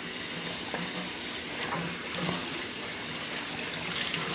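Kitchen tap running: a steady hiss of water with a few faint clicks.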